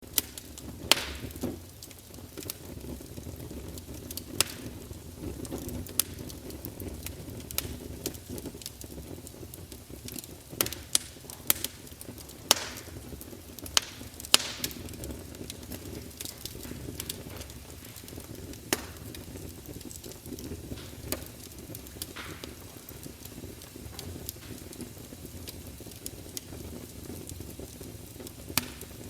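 Campfire crackling: irregular sharp pops and snaps of burning wood over a steady low rush of flame.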